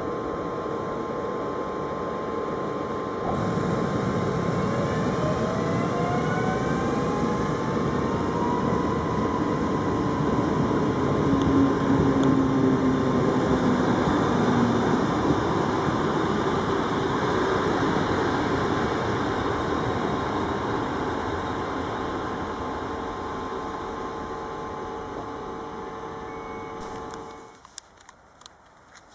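Electric train running past, with a motor whine that rises in pitch as it gathers speed and steady wheel and running noise. It is loudest about halfway through, fades slowly, then cuts off abruptly near the end.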